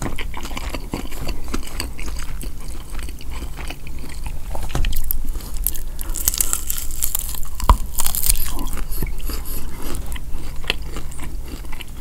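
Close-miked eating sounds: chewing, then crisp crunching bites into a fried chicken wing about six seconds in, with one loud crunch near the middle.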